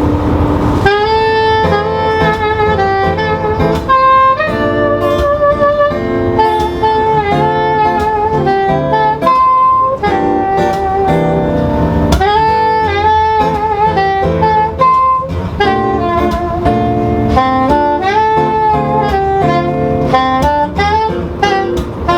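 Live acoustic trio playing an instrumental passage: a saxophone carries the melody over acoustic guitar accompaniment, the melody coming in about a second in.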